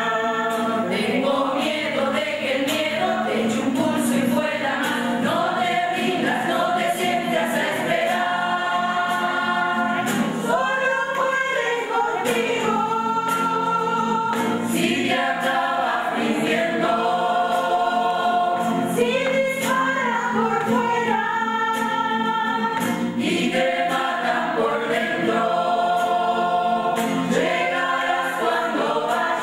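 A choir singing, holding chords that change every second or two.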